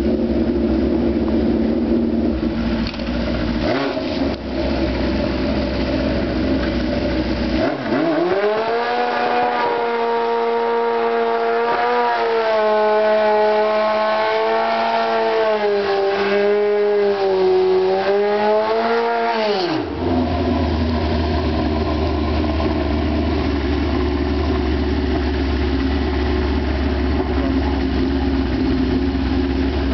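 Motorcycle engines running at a drag strip. From about 8 s to 20 s one engine is held at high revs at a nearly steady, slightly wavering pitch, then drops back to a steady rumble.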